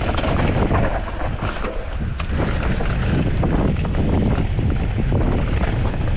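Wind buffeting the microphone of a camera on a mountain e-bike being ridden over a rough trail, a loud steady rumble, with the bike rattling and clicking irregularly over the ground.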